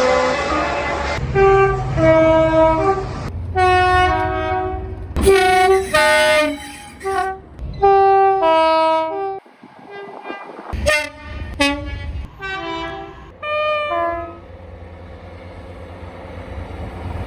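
British train horns sounded in a string of short blasts, most stepping between a high and a low note, one after another with abrupt changes between them. Near the end, a steady low rumble of a train running.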